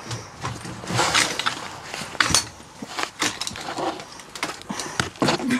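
Clothing rustling, with scraping and irregular small knocks, as a person squeezes through a narrow window and pushes against a rough wall close to the microphone.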